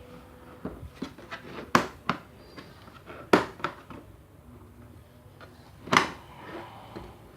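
Packaging of a new drill set being handled and opened: a few sharp clicks and knocks, the loudest about two, three and a half and six seconds in, over light handling rustle.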